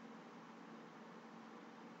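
Near silence: faint steady hiss and low hum of room tone.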